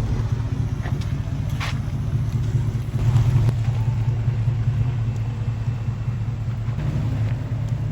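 Four-wheel-drive vehicle driving slowly on a dirt forest track: a steady low engine and road rumble, with a few faint knocks from the rough ground.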